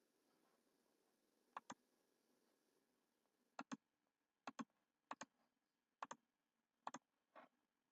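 Six sharp double clicks, each pair about a tenth of a second apart and spaced irregularly, with one softer single click near the end. Between them there is near silence.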